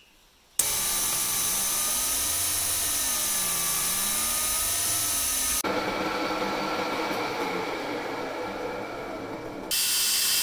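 Metal lathe running and turning a small brass fitting, a steady machine whine with a tone that wavers up and down in pitch. It starts abruptly about half a second in and changes character suddenly about halfway and again near the end.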